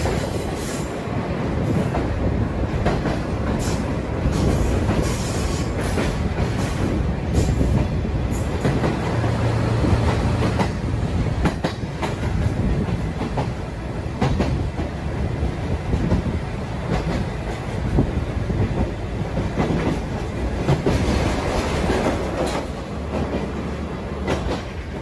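Sagano trolley sightseeing train running along the track, heard from on board: a steady rumble from the carriages, with irregular clacks of the wheels over the rail.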